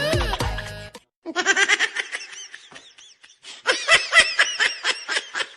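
A music sting fades out, then after a short gap a person laughs in quick, high-pitched bursts, in two runs with a brief pause between them.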